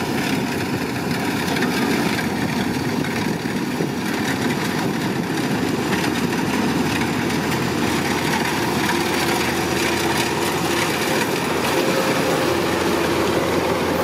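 Kubota DC-105X combine harvester running steadily as it cuts rice: its diesel engine and the header and threshing machinery make one continuous mechanical noise.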